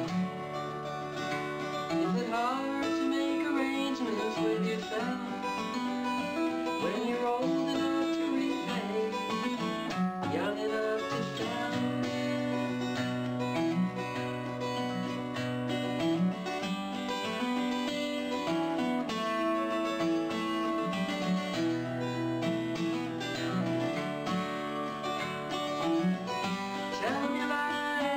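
Acoustic guitar playing a country-style tune: picked notes, some gliding in pitch, over held bass notes that change every few seconds.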